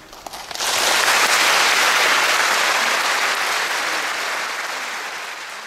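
Audience applause: a few scattered claps, then the applause swells to full within the first second and slowly dies away over the following seconds.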